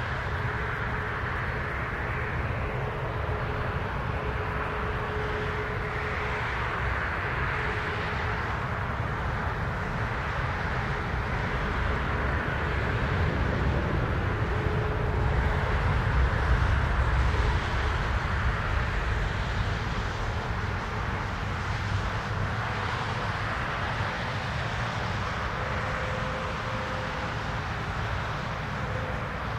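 De Havilland Dash 8-400 twin turboprop engines and propellers running on departure, as a steady drone with a faint humming tone in it. The loudness swells to a peak about halfway through and then eases off as the aircraft passes.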